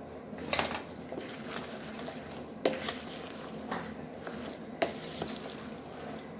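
A spoon stirring boiled rice and butter in a pot, with a few sharp knocks and scrapes against the pot over a faint steady hiss.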